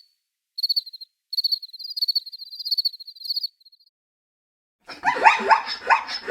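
A cricket chirping in quick pulsed trills for about three seconds. Then, after a short gap, a dog gives a rapid run of high yips about five seconds in.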